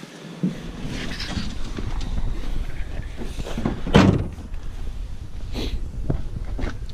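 Someone climbing out of a pickup's cab: shuffling and handling noise over a low rumble, with one loud knock about four seconds in as the door is shut.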